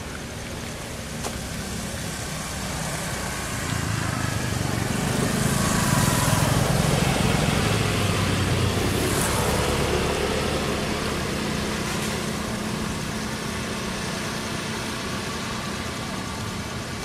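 A motor vehicle going past: a low engine rumble swells to its loudest about six seconds in, then slowly fades.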